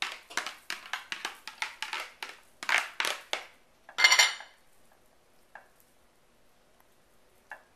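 A metal spoon clinking and scraping in quick repeated taps as cooked elbow macaroni is pushed out of a plastic colander and spread in a ceramic casserole dish. A louder clatter comes about four seconds in, then only a few faint taps.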